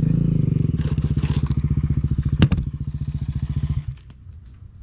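ATV engine idling with a steady chug. A single sharp knock comes about two and a half seconds in. The idle cuts off abruptly near the end, leaving a fainter engine rumble.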